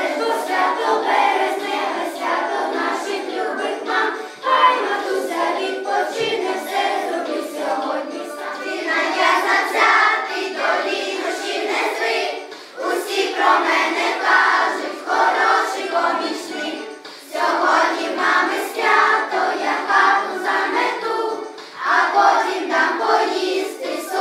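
A class of young schoolchildren singing together as a choir, in phrases with brief pauses between them.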